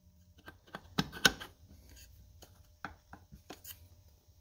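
A new metal clutch slave cylinder being pushed onto the transmission input shaft and seated in the bellhousing: two sharp metal clicks about a second in, then a few lighter taps of hand and part.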